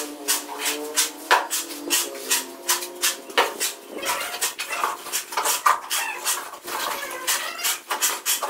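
Hand trowel clinking and scraping on the wet cement screed in quick, uneven strokes. A wavering whining call sounds over the first three seconds.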